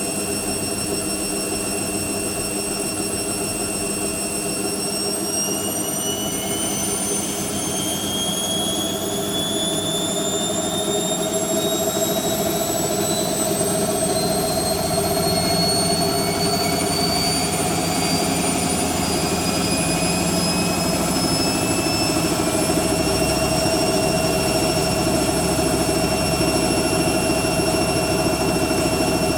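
Hoover Quattro AE130 washing machine spinning up. The motor whine rises steadily in pitch for about fifteen seconds as the drum gathers speed, then holds steady at the higher spin speed over a rumble.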